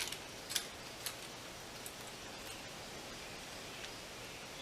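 A few faint, sharp clicks and light rustling from handling small metal hardware as a long mount screw is started by hand.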